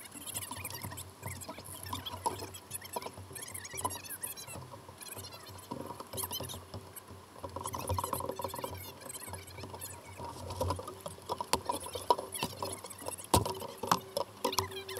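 Water lapping and splashing against plastic kayak hulls, with scattered small knocks and clicks of hulls and paddles bumping among kayaks rafted up together.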